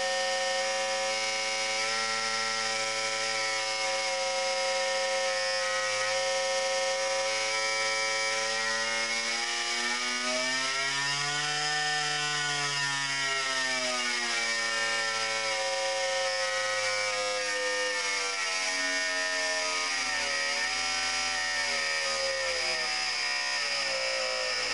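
Servo-hydraulic testing machine shaking a thin strip clamped in its wedge grip: a steady pitched hum with many overtones. Its pitch slides up and back down about halfway through, as the drive frequency is changed, and wavers again near the end.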